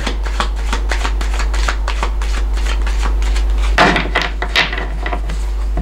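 Tarot cards being shuffled by hand, a rapid run of small clicks and flaps that carries on without a break, over a steady low hum.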